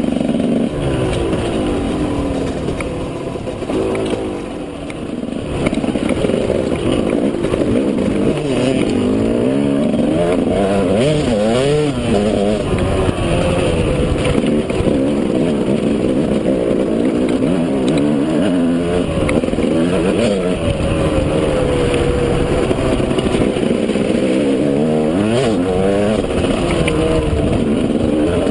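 KTM 200 EXC two-stroke single-cylinder dirt bike engine, heard close from the rider's helmet camera, its pitch rising and falling with the throttle through the whole stretch; it eases off briefly about four seconds in, then pulls again.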